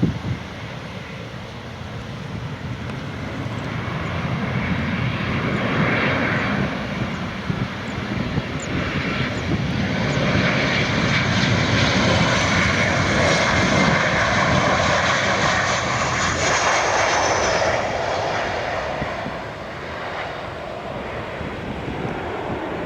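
Boeing 737 jet airliner passing on its landing, its twin turbofan engines a rushing roar that builds, peaks with a thin high whine falling in pitch, and fades about eighteen seconds in.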